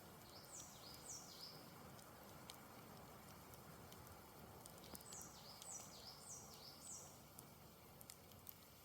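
Faint campfire crackling with scattered small pops, and a bird singing two phrases of quick, high, falling whistled notes, a short one near the start and a longer one about five seconds in.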